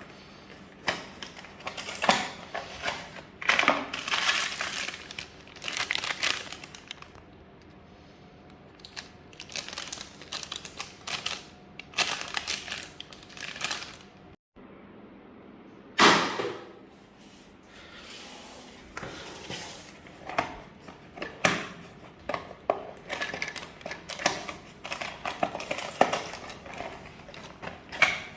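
A parcel being handled without bubble wrap: a string of knocks, thumps and clicks with crinkling and rustling of packaging between them. The loudest is a single sharp hit a little over halfway through, just after a brief cut-out of the sound.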